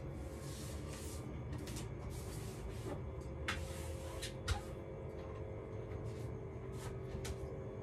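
Washing up at a kitchen sink: short splashes of water and a few clinks and knocks of dishes, the loudest knock about four and a half seconds in, over a steady low hum.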